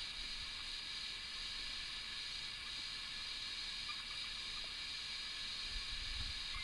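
Steady high-pitched hiss with no clear source, with a faint low rumble near the end.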